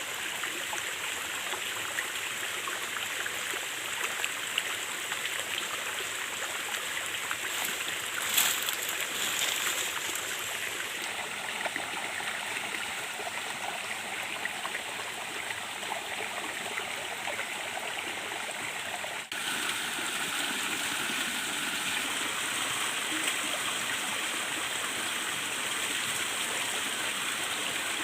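A stream running steadily, with a brief break about two-thirds of the way through, after which the water sounds a little louder.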